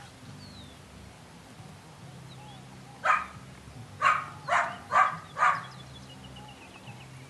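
Belgian Malinois puppy barking five times: one bark about three seconds in, then four quick barks in a row about a second later.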